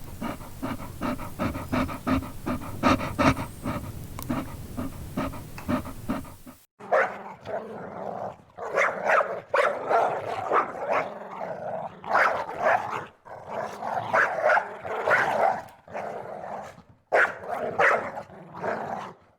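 A dog panting in quick, even breaths; about six and a half seconds in it cuts to a dog snarling and growling in repeated bursts broken by short pauses.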